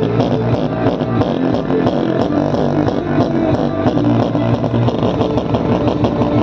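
Music with a steady beat and strong bass playing through a homemade 4-inch subwoofer in a small wooden enclosure, as a sound test of the box.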